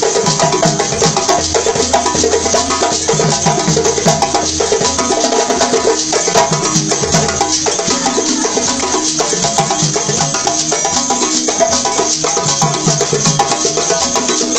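Live West African percussion music: djembe drumming over balafons, the wooden-keyed xylophones playing a repeating pattern of pitched notes.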